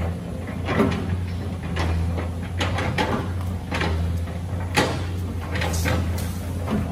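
Caterpillar excavator's diesel engine running with a steady low drone, with a scatter of sharp knocks and clanks as the boom and bucket move.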